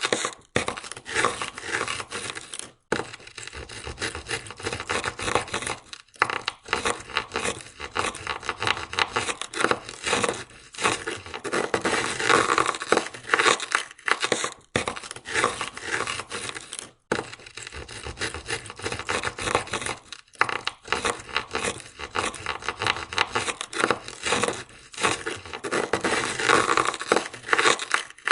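Ice scraper scraping ice off a car window in quick, rough, repeated strokes, stopping briefly a few times.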